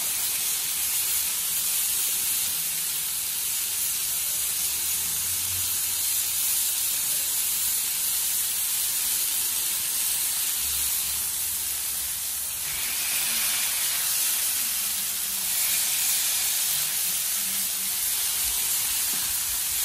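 Smashed beef burger patties sizzling on a hot Blackstone flat-top griddle: a steady high hiss of frying fat.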